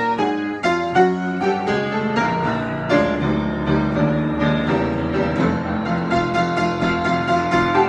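Solo piano improvisation: a steady run of notes and chords over held low notes.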